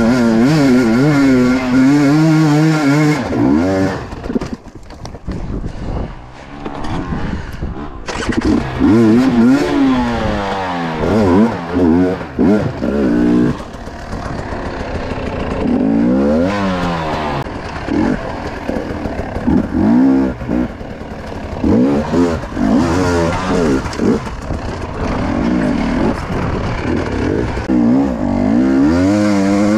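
Enduro motorcycle engine revving while being ridden, its pitch rising and falling over and over with the throttle. The engine drops quieter for a few seconds about four seconds in, then picks up again.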